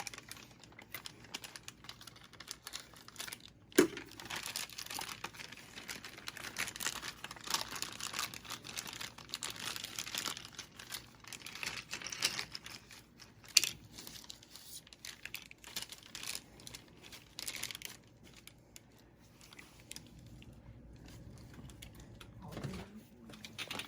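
Packaging around board game pieces being unwrapped: irregular crinkling and tearing, with a couple of sharp clicks, about four seconds in and again past the middle.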